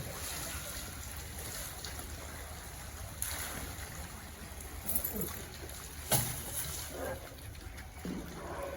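Steady water noise from the enclosure's pool, with a low hum underneath and a few faint knocks.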